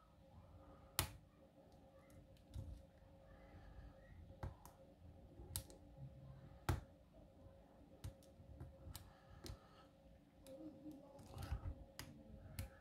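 Lock picking on a worn padlock: small, irregular metallic clicks and ticks of a pick and tension wrench working the pins in the keyway, with a few sharper clicks and faint handling rumble.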